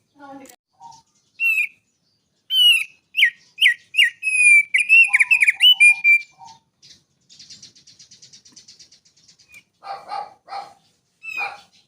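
A small songbird singing a varied song: sharp chirps and whistled notes, then a fast dry trill of about eight seconds' rapid ticks, and lower notes near the end.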